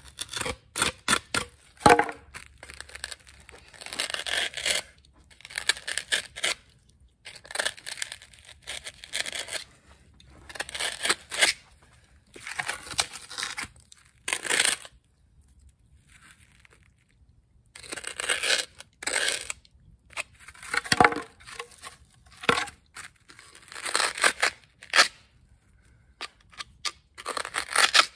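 Foam board being cut by hand to trim its edges: irregular short strokes of cutting and tearing noise, with a pause of about two seconds a little past halfway.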